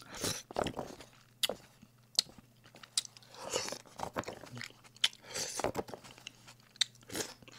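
A man slurping and chewing creamy seafood noodles (cream jjamppong) close to a microphone. The wet mouth sounds and clicks come in short irregular bursts, a few each second.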